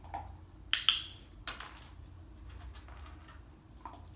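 A dog-training clicker clicks once, a sharp double click about three-quarters of a second in, marking the puppy for keeping his paws in the box. A few softer taps follow.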